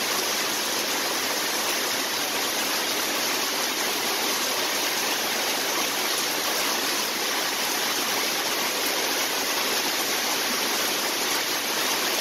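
Heavy rain pouring down, a steady, even rushing hiss.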